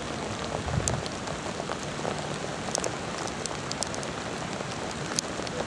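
Steady rain falling, with scattered sharp drops pattering close by.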